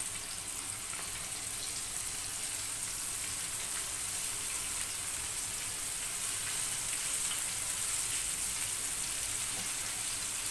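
Hot oil sizzling steadily in a frying pan as flour-coated small fish shallow-fry in it, growing slightly louder as more fish are dropped in.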